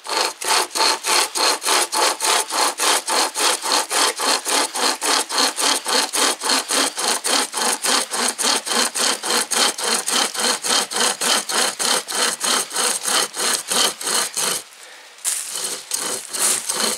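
Hand saw cutting through a young beech log in fast, even back-and-forth strokes, about four a second. The sawing stops briefly about two seconds before the end, then starts again.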